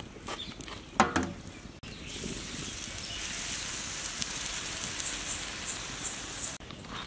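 Pancake batter and oil sizzling on a hot oiled iron griddle: a steady high hiss with scattered crackles, starting abruptly about two seconds in and cutting off shortly before the end. A short loud vocal sound comes about a second in.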